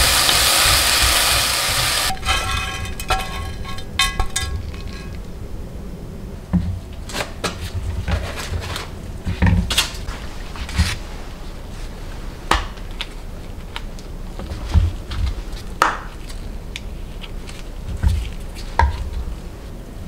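Dried anchovies sizzling in a pan as they are stirred with a wooden spoon, the hiss cutting off about two seconds in. Then come scattered light taps and soft knocks as button mushrooms are handled on a wooden cutting board.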